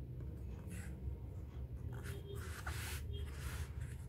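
Stiff cardstock pages of a postcard book being turned and slid by hand: a few short papery rustles, the longest about two to three seconds in, over a low steady background hum.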